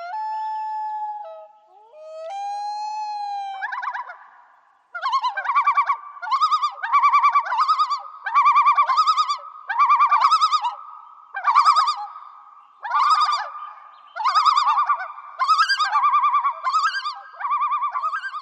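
Loon calling: two long, steady wail notes, then a run of about ten repeated, wavering yodel phrases, each about a second long.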